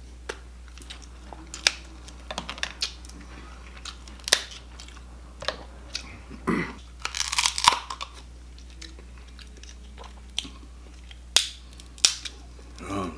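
Close-miked eating: a person chewing crab meat, with scattered wet mouth clicks and crackles and a denser burst of crackling about seven seconds in.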